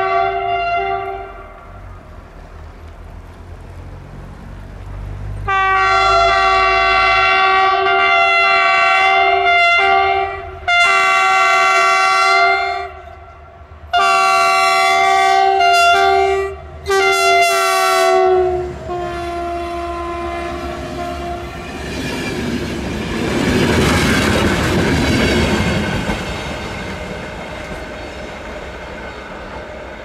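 Multi-tone air horn of a GM (EMD) diesel locomotive: one chord ends about a second in, then four long loud blasts follow with short breaks between them. Then the train passes, its wheels rumbling and clattering over the rails, and the sound fades as it runs away.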